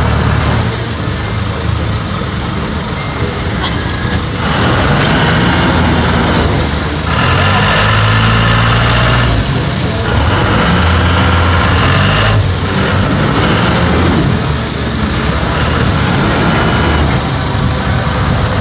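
Sportfishing boat's engines running steadily, with wind and water noise over them; the sound swells and eases several times.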